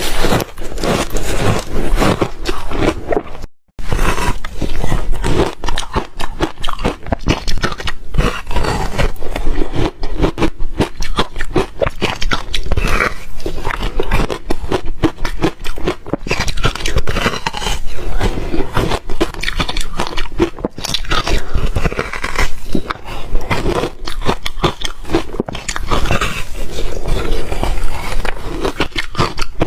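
Close-up crunching and chewing of reshaved refrigerator ice: rapid, dense crackly crunches that run on continuously, with one brief break about three and a half seconds in.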